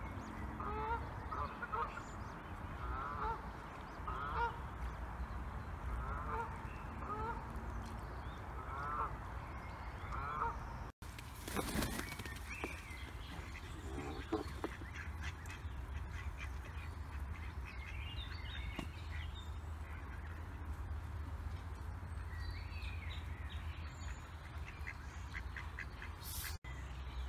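Canada geese calling, with short honks repeating about once a second for roughly the first ten seconds. Then comes a brief loud rustling burst, a couple of lower, falling honks, and scattered softer calls, all over a low background rumble.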